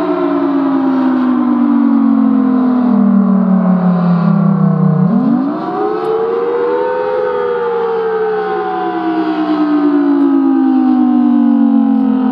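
Federal Signal Thunderbolt 1000BT storm siren sounding. Its pitch falls for about five seconds, rises quickly back up, then falls again.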